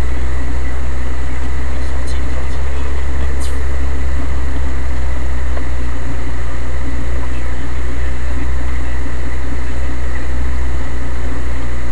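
Steady low engine drone heard from inside the cabin of an off-road vehicle driving along a dirt track, with a couple of faint clicks.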